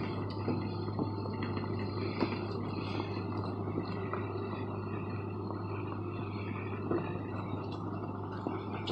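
Pickup truck engine running steadily under load as it pulls a fifth-wheel camper trailer slowly through snow, with a few light clicks.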